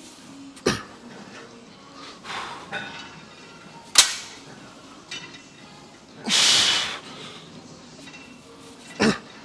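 A lifter's forceful breathing during a heavy set of cable reverse curls: short hard exhales near the start and end and a longer hissing breath a little past halfway, with one sharp clack of the cable machine about four seconds in.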